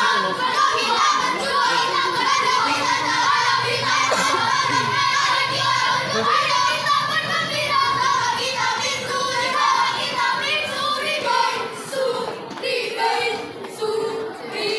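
A group of children singing and chanting a scout yel-yel together, a cheer song sung in unison.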